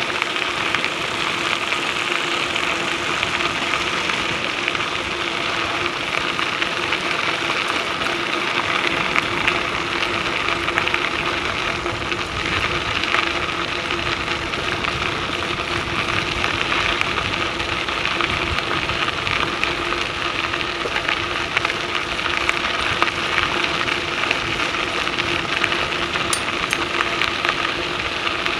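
Bicycle tyres rolling over a crushed-limestone trail: a steady gritty crackle with some steady hum beneath.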